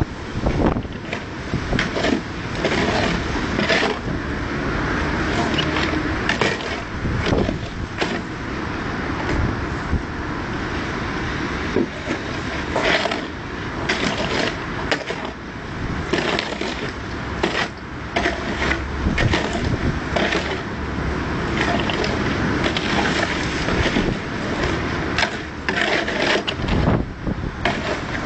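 Hand tools scraping and knocking on stone, with frequent short, irregular clacks and no pause.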